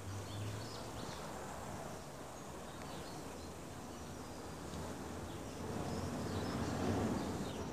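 Outdoor ambient background noise: a steady low hum with faint, scattered high chirps, swelling a little about six to seven seconds in.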